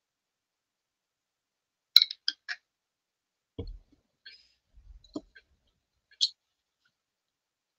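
Handling of art supplies on a desk: a quick run of sharp clicks and taps about two seconds in, then a few soft knocks and dull thumps, and one more click near the end.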